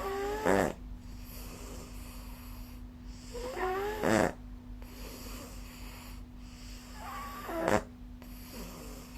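A sleeper snoring with a Nastent nasal stent in place: three snores about three and a half seconds apart, each a rising pitched rasp that ends in a short, loud burst.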